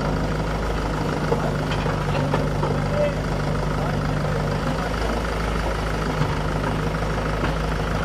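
Mahindra 475 DI XP tractor's diesel engine idling steadily, mixed with the engine of a backhoe loader working close by; a couple of light knocks about one and three seconds in.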